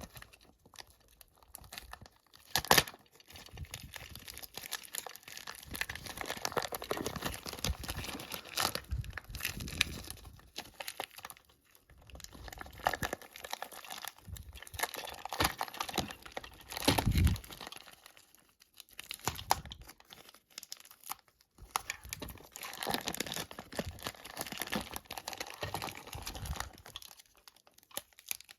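Packaging of a boxed toy train set being unpacked by hand: irregular crinkling and tearing, with a few sharp knocks.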